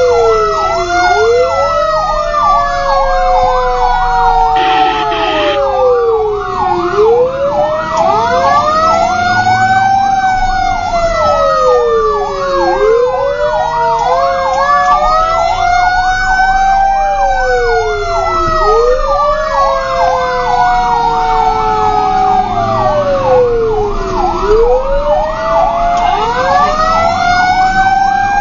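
Fire truck sirens heard from inside a responding tanker's cab: several sirens sound at once. A slow wail rises and falls every two to three seconds over a rapid yelp, and longer tones glide down over several seconds.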